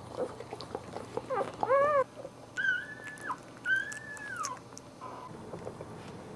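Newborn boxer puppies crying: a wavering squeal about a second and a half in, then two long, high-pitched cries, the second sliding down at its end.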